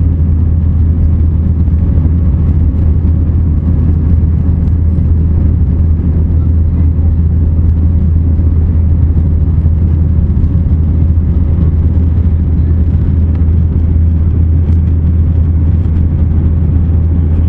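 Jet airliner cabin noise in flight: a loud, steady, low rumble of engines and airflow heard from inside the cabin.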